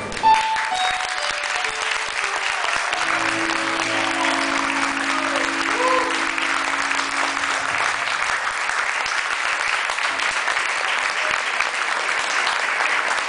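Audience applauding at the end of a live song. The band's last chord rings on beneath the clapping for the first several seconds, then fades.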